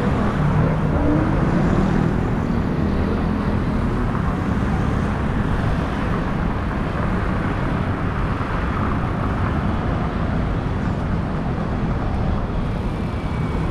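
Steady city road-traffic noise from motor vehicles, with an engine's low hum in the first couple of seconds.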